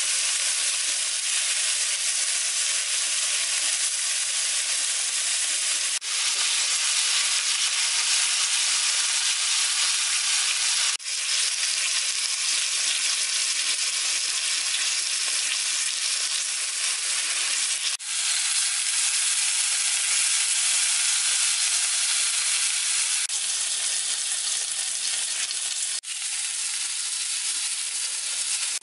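Beef rolls sizzling in hot oil in a pan: a steady, bright frying hiss, broken by a brief dip a few times.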